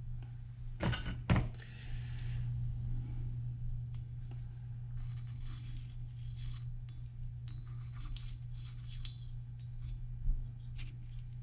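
Small metal chainsaw engine parts being handled and fitted: two sharp clicks about a second in, then light clinks and scrapes, over a steady low hum.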